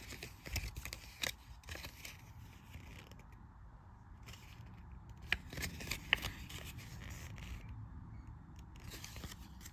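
Hands handling the paper label of a yarn skein: quiet rustling with scattered small clicks and scrapes, and two sharper clicks about five and six seconds in.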